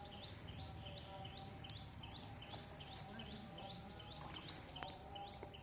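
A bird calling over and over, short high chirps at about two and a half a second.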